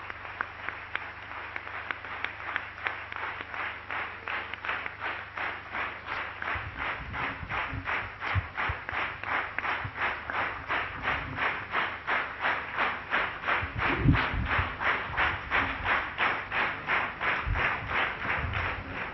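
Audience applauding, the clapping settling into a steady rhythm of about two and a half claps a second and growing louder, with a few low thumps along the way.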